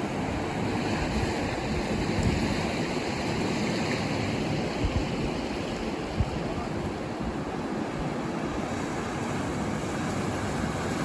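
Ocean surf washing on the shore: a steady, even rush of waves with some wind on the microphone, plus a couple of faint ticks midway.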